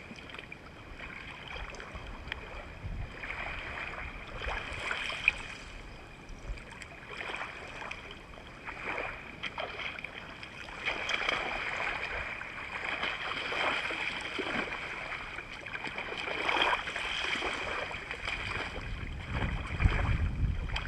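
Small waves lapping and splashing in shallow water, with wind buffeting the microphone near the end.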